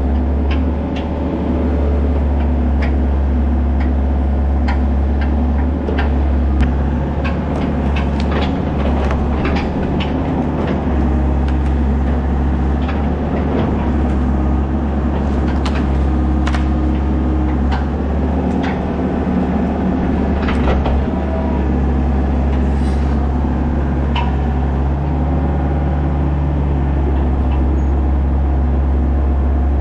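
Excavator's diesel engine running steadily under working load, heard from the operator's seat, with scattered clanks and knocks, thickest in the middle, as logs are gripped and swung in the bucket and thumb.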